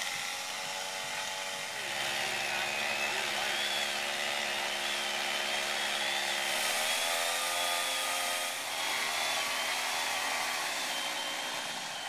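Chainsaw running steadily as it cuts into the base of an ash trunk, its pitch dipping briefly about seven seconds in as the chain loads up in the cut.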